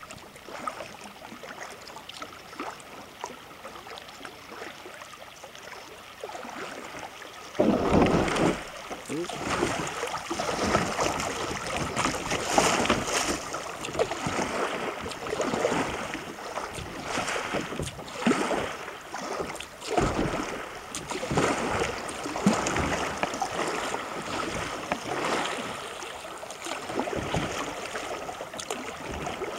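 Kayak moving down a shallow creek, with water rippling and splashing against the hull. About seven seconds in it turns louder and choppier, with irregular surges, as the kayak runs through shallow rippled water.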